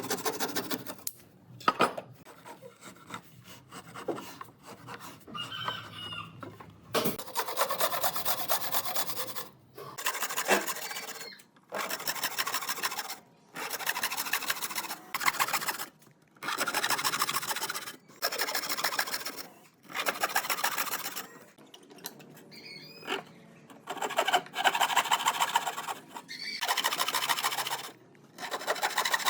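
A tool rasping against wood in repeated strokes, each one to two seconds long with short pauses between.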